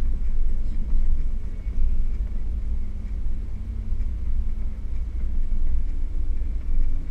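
Off-road vehicle driving uphill on a rough dirt track: a steady deep rumble with a faint engine hum running through it.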